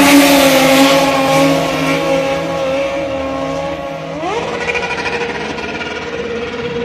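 Motorcycle engine running at high revs, loudest in the first second or so as a bike wheelies close by, its note sagging slightly. About four seconds in, an engine revs up quickly and holds a higher steady note.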